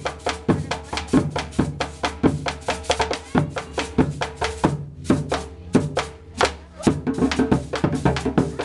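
Background music with a quick, steady percussion beat.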